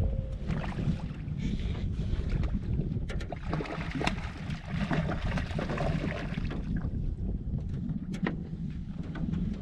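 Wind buffeting the microphone over water lapping against a small fishing boat, with a few sharp knocks.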